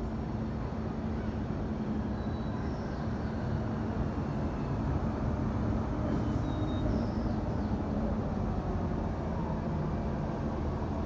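Steady city street traffic noise: a continuous low rumble of passing vehicles with a constant low hum, swelling a little midway. Faint short high chirps come twice, about three and about seven seconds in.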